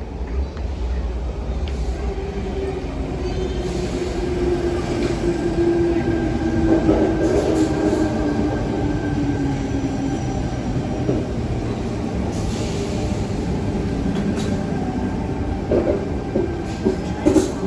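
Sydney Trains Tangara electric train pulling into a platform and slowing to a stop: a rumble of wheels on rails, with a whine that falls in pitch as it brakes and a few sharp knocks near the end.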